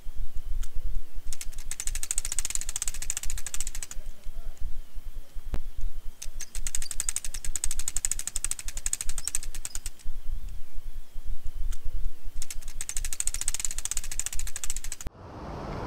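Audio dropout glitch: a rapid, dense crackle of digital clicks, heavier in three bursts of a few seconds each. Just before the end it cuts off abruptly and a steady outdoor hiss returns.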